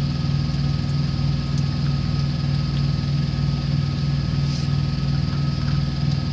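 Semi truck's diesel engine idling, heard from inside the cab: a steady low hum with a regular throb.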